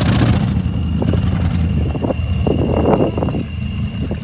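Battered Dodge Durango's engine running as the SUV drives slowly over rough, muddy ground, with a steady high-pitched whine over the low engine rumble and a few short irregular noises.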